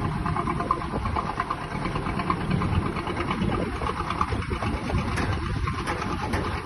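Engine idling steadily, a low rumble with an even, fast pulse.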